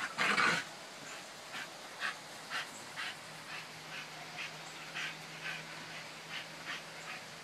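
A dog gives one short, loud bark-like sound at the start, then pants in quick, even bursts about twice a second, over a steady hiss of rain.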